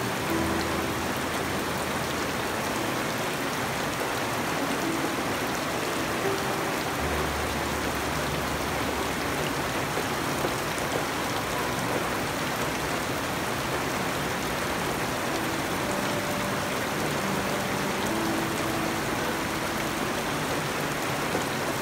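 Steady rain pouring down on garden foliage and a puddled yard, an even hiss of many drops.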